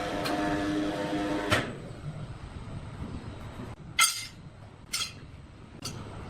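Sawmill machinery running with a steady whine that stops abruptly with a click about a second and a half in, followed by three sharp knocks.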